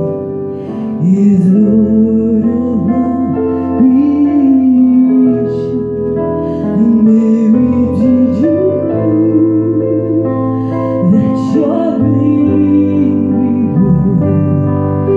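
Digital piano playing sustained chords, with a voice singing a slow melody over it, holding notes with a slight waver.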